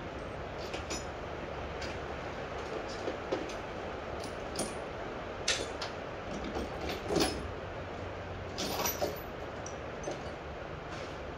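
Metal tools and small parts clinking and clattering as they are sorted by hand in a toolbox tray, a dozen or so sharp knocks, some ringing briefly, over a steady background hiss.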